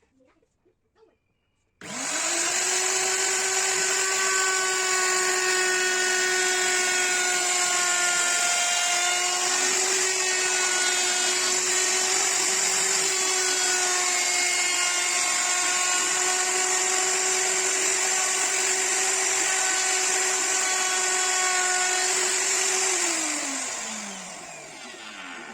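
An electric power tool starts abruptly about two seconds in and runs at a steady pitch for some twenty seconds, then switches off and winds down, its pitch falling, near the end.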